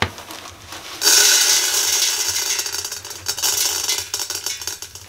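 Popcorn kernels poured from a plastic bag into a metal pot of oil heated to its smoking point, rattling onto the pot's bottom. The pour starts loud about a second in, then eases off.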